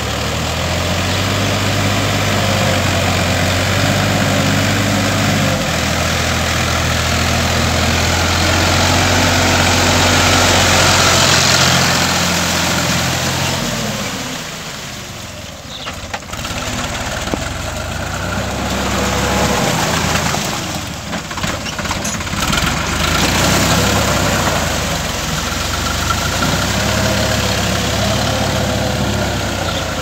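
Diesel farm tractor engine running steadily as it pulls a rotary tiller through a flooded, muddy paddy field. The engine note shifts in pitch a few times and fades briefly about halfway through.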